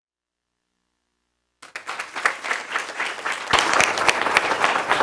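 Audience applauding, starting suddenly after about a second and a half of silence and growing louder about halfway through.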